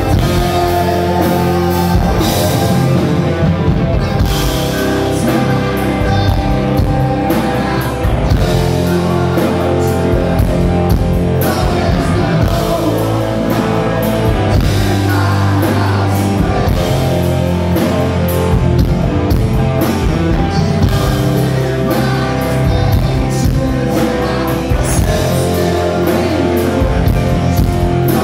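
Rock band playing live: electric guitars, bass and drums, with a singer's voice over them.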